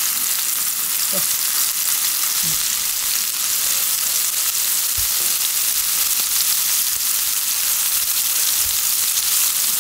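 Minced-beef tteokgalbi patties sizzling steadily in hot oil in a frying pan while a wooden spatula turns them over, with a couple of soft knocks as they are flipped.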